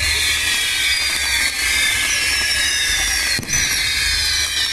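Fireworks castillo burning: its spinning pyrotechnic wheels give a steady loud hiss with many overlapping whistles falling in pitch, over a low rumble. A couple of sharp pops cut through.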